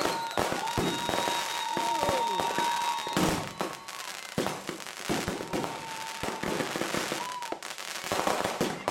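Finale of a fused rack of consumer fireworks: a dense, irregular run of launches, bangs and crackling bursts, with a steady high tone running through parts of it.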